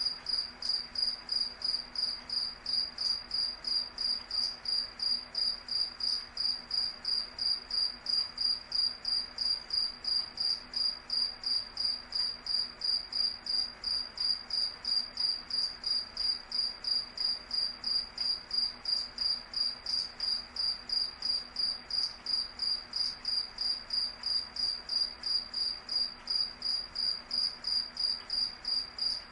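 Cricket chirping: evenly spaced high-pitched chirps, about two to three a second, repeating steadily without a break.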